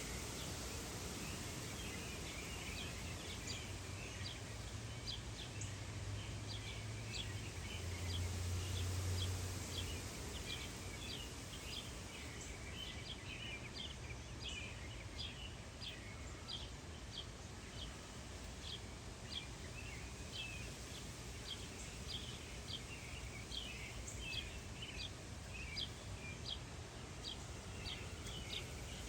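Small songbirds chirping: short high chirps, one or two a second, over steady outdoor background noise. A low rumble swells and fades in the first third.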